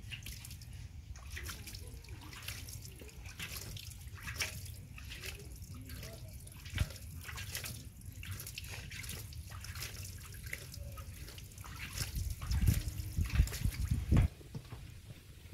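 Water splashing and dripping in a metal basin as a hand washes and swishes something in it, with small splashes throughout. A few louder, low thumps come near the end.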